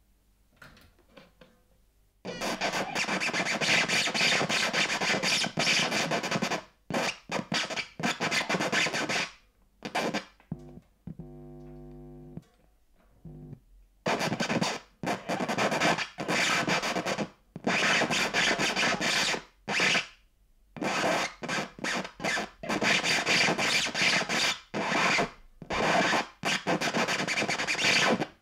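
Vinyl record being scratched back and forth by hand on a turntable, played through speakers as a harsh rasping noise in long stop-start runs with abrupt breaks. It starts about two seconds in, and a brief buzzing pitched tone comes in a lull near the middle.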